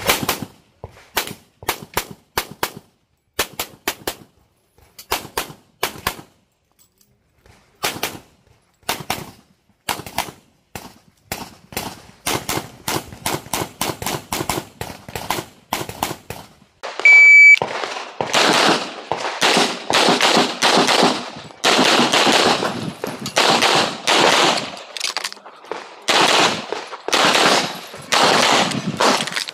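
Handgun shots fired in fast strings and pairs during an IPSC stage run, with short pauses between groups. About 17 seconds in, an electronic shot timer beeps once and another rapid string of shots follows, louder and more echoing.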